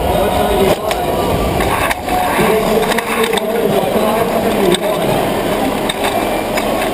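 Competition robot's electric drive motors and gearboxes whining, the pitch rising and falling as it drives and turns, with wheels rolling on carpet and a few sharp knocks.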